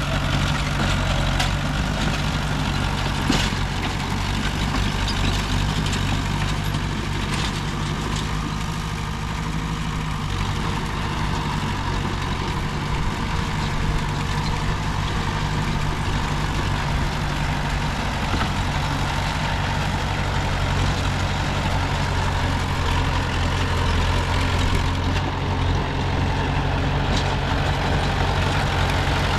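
Diesel engines of a small bulldozer and dump trucks running steadily, with a low, even rumble. A couple of sharp clicks or knocks stand out early on.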